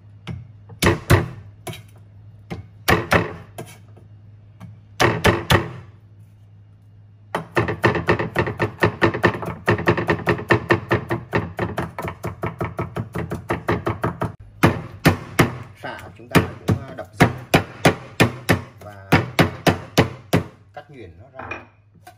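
Chinese cleaver chopping shallots and garlic on a round wooden chopping block. It starts with a few separate groups of whacks, then about seven seconds in settles into rapid, even mincing at several strokes a second, in runs broken by short pauses.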